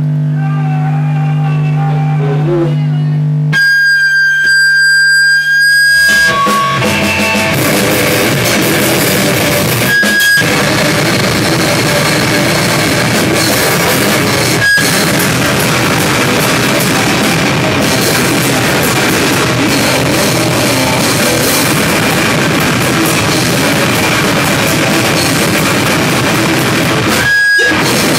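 Rock band playing live with drum kit and guitar. The opening seconds are steady held tones with a high steady tone over them, then the full band comes in loud about six seconds in, broken by a few very brief stops.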